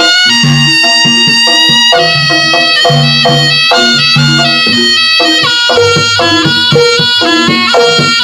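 Jaranan accompaniment music: a shrill, reedy wind instrument, the slompret, plays a held, wavering melody over repeated drum and gong-chime strokes.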